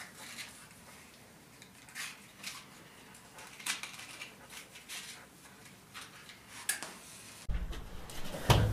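Scattered faint taps and rustles of hands handling papers on a wooden table. Near the end a low steady hum comes in.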